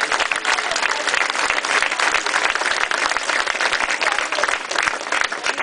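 Large crowd applauding steadily: many hands clapping at once in a dense patter.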